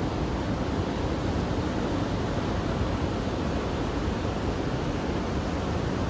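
Ocean surf breaking on a beach: a continuous, even rush of waves with no single crash standing out.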